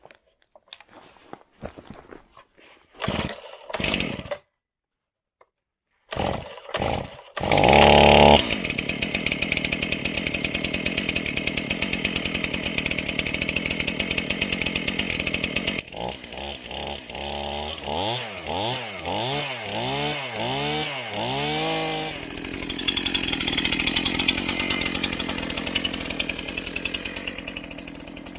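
Stihl MS 271 Farm Boss two-stroke chainsaw being started with a few short pulls of the starter cord, catching about a third of the way in and idling steadily. It is then revved up and down several times in quick sweeps, and after that runs at a steady higher speed.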